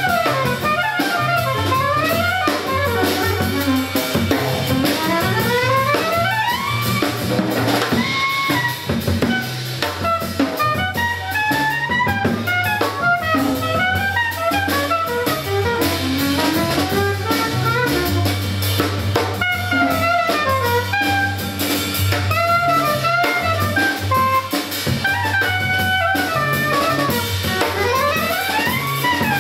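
Live jazz trio playing: a woodwind solos in fast runs sweeping up and down, over upright double bass and drum kit.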